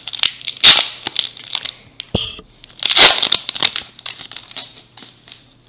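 Plastic baseball-card pack wrapper crinkling as it is pulled open and handled, with two louder bursts of crackling, about a second in and about three seconds in, then fading to lighter rustles.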